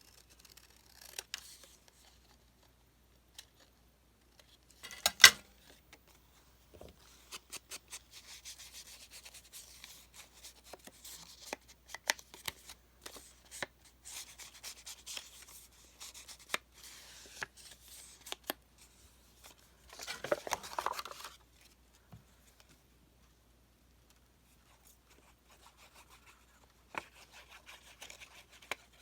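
Paper and craft materials being handled and rubbed on a work table: soft scraping and rubbing with scattered small clicks and taps, and one sharp knock about five seconds in.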